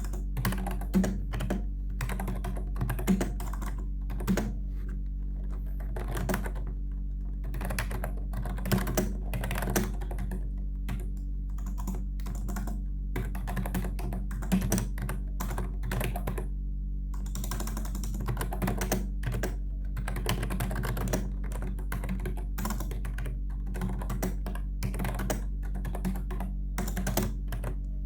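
Typing on a Logitech K120 membrane keyboard: runs of quick key presses broken by short pauses, over a steady low hum.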